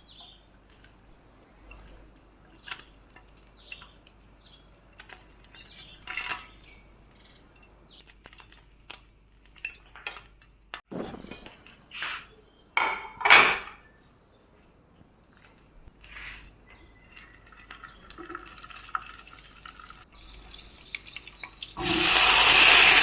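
Kitchen utensils and dishes clinking and knocking, scattered light clicks with a couple of louder knocks in the middle. Near the end a loud, steady sizzle starts suddenly as food hits a hot frying pan.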